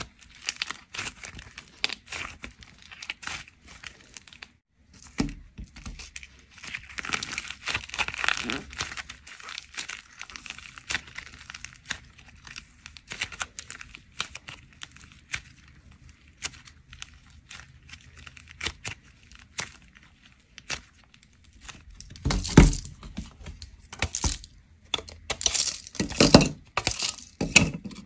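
Hands squeezing and kneading soft clay packed with dried plaster-clay chips, giving a continual run of small crackles and crinkles. Near the end come several louder, sharp cracks as the dried plaster-clay layer on the board is broken.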